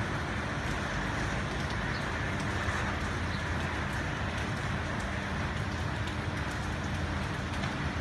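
Steady rain falling onto a wet, puddled concrete surface, with scattered small drop clicks over an even hiss. A steady low hum runs underneath.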